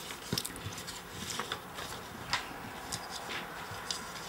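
Sheets of paper rustling as they are handled and turned over on a desk: an irregular series of short crackles, the sharpest one a little past halfway.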